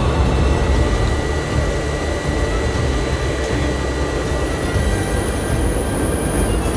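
Cessna Caravan's single turboprop engine running, heard inside the cabin: a steady heavy rumble with a thin whine, and a higher whine that comes in about four and a half seconds in.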